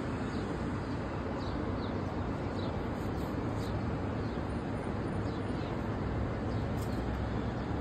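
Steady hum of city traffic, with brief high bird chirps scattered through it.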